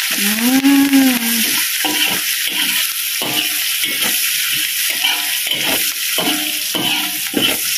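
Metal slotted spatula scraping and tossing garlic, lemongrass, onion and curry leaves in hot oil in a wok, with repeated scrapes about twice a second over a steady sizzle. A short drawn-out voice sound comes in the first second or so.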